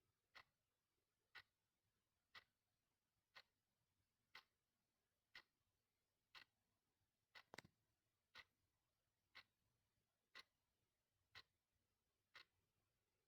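Clock ticking faintly and evenly, one tick a second. About seven and a half seconds in, an extra, louder double click falls between two ticks.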